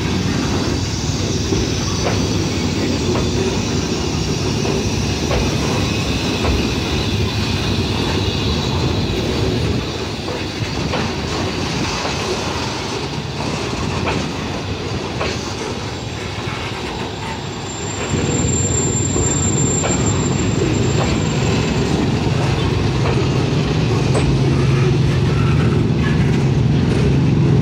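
Loaded clinker freight wagons rolling slowly past during shunting, their wheels clacking over the rail joints. A thin high wheel squeal sounds for a few seconds about two-thirds through, and a low engine hum builds near the end.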